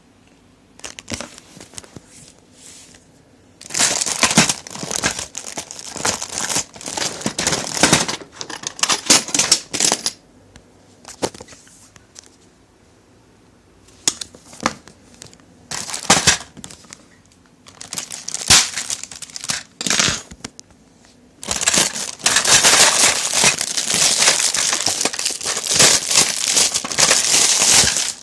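Packaging being unwrapped by hand, crinkling and crackling in irregular bursts with short pauses, then a longer unbroken stretch of crinkling near the end.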